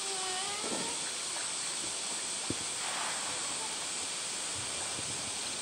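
Steady hiss of running water. A brief high call falls in pitch near the start, and a single sharp knock comes about halfway through.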